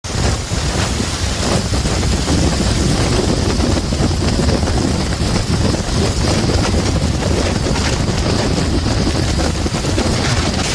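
Hurricane wind gusting hard and buffeting the microphone, a loud, steady rushing noise with heavy low rumble.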